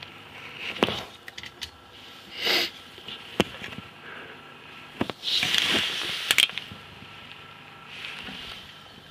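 Massey Ferguson 590 Turbo tractor's diesel engine idling faintly, heard from inside the cab, under sharp clicks, knocks and rustling scrapes of handling in the cab. The loudest moment is a rush of noise lasting about a second, about five seconds in.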